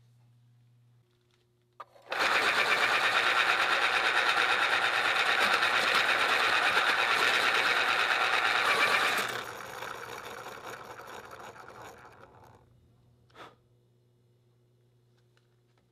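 Electric pencil sharpener grinding a wooden pencil: a loud, fast, even grinding for about seven seconds, then a lighter run for a few seconds before it stops. A short click follows near the end.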